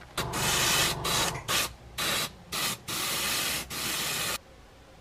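Airbrush spraying paint in about seven short bursts of hiss, each cut off sharply, stopping a little over four seconds in.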